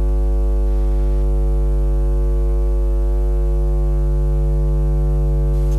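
Station ident music ending on one long held keyboard chord, steady and unchanging, with a deep low tone underneath.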